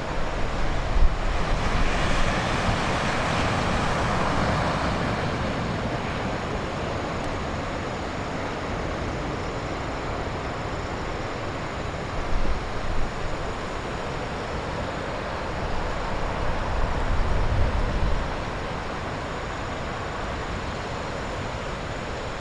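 Heavy typhoon surf breaking and washing along the shore, a steady roar that swells with a big wave a couple of seconds in. Gusts of wind buffet the microphone with low rumbles twice in the second half.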